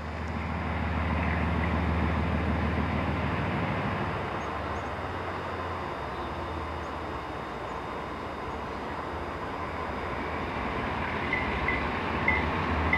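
GE diesel locomotives of an unseen freight train working, a deep steady engine rumble that swells in the first couple of seconds. Near the end a grade-crossing bell starts dinging, about one and a half times a second.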